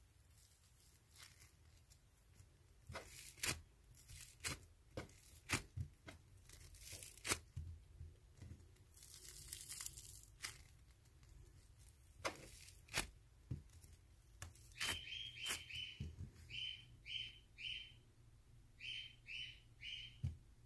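Slime being handled: a string of sharp clicks, pops and a tearing sound as it is pulled and pressed. From about 15 seconds in come groups of short, high chirps, three or four in quick succession.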